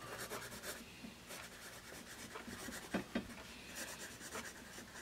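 Graphite #2/HB wooden pencil scratching faintly across paper in short cursive strokes. The lead is on the soft side, which the writer finds for this pencil.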